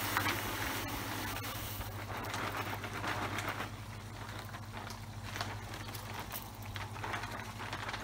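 Hel-X 13 plastic filter media pellets pouring out of a plastic bag into a filter chamber: a rushing hiss for about the first two seconds, then scattered clattering and bag rustling as the bag is shaken out. A steady low hum runs underneath.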